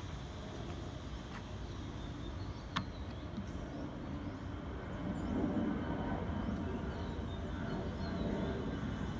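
Distant jet rumble of an Airbus A320-216 with its CFM56 engines, climbing out after take-off. A low steady rumble that swells about five seconds in, with a single sharp click about three seconds in.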